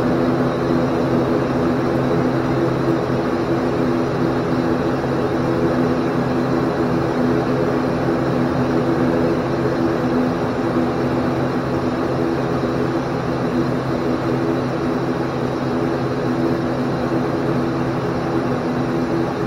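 ATR 42-500's turboprop engines and propellers droning steadily, heard from inside the cockpit, a constant hum with several steady tones over engine noise.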